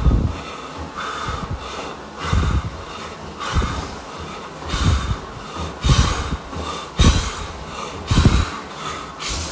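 A man breathing hard through a set of push-ups, with a forceful exhale on each rep, about one a second, blown close onto the microphone.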